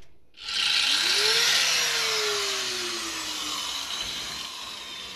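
A small motor whirring with a hiss. Its whine rises about a second in, then slowly falls as the sound fades away.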